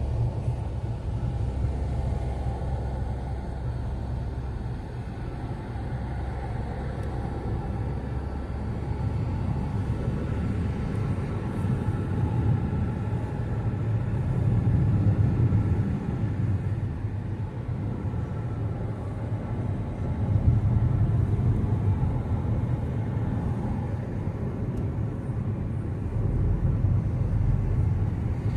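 Inside a moving car's cabin: a steady low road-and-engine rumble while driving, swelling a little at a few points.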